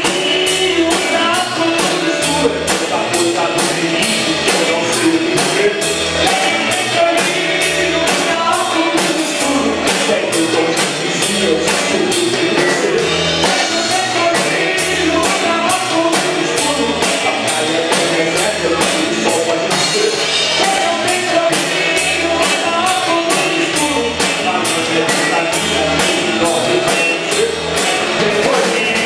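Live rock band playing a song: drum kit with a steady beat, electric bass and two electric guitars, with a man singing lead into the microphone.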